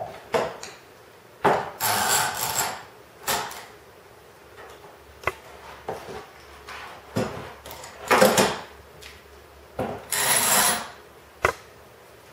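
Small bar clamps being fitted and tightened on a glued-up oak disc: several short scraping, rattling bursts as the clamp jaws slide and grip, with a few sharp clicks between them.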